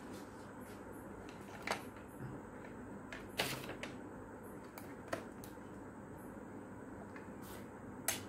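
A few light clicks and knocks of tools and small objects being picked up and set down on a workbench, four of them spread out over several seconds, over a faint steady background hiss.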